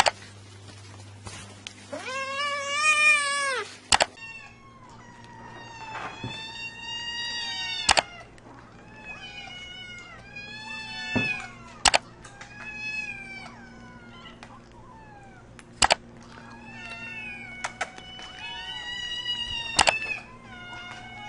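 Kittens meowing over and over in high, overlapping calls, after one longer meow about two seconds in. Sharp clicks come about every four seconds.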